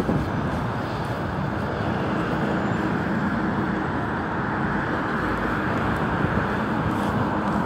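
Steady city street and traffic noise: a dense, even rumble and hiss of vehicles with no single distinct event.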